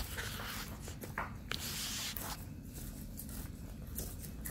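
Dogs licking ice cream out of small paper cups: a handful of short, wet scraping licks, with a longer one about two seconds in.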